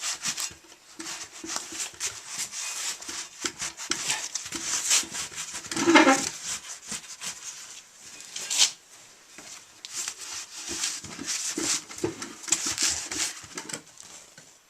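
Hands working at a tire and rim: irregular scraping, rubbing and light knocks and clicks. One louder pitched sound comes about six seconds in.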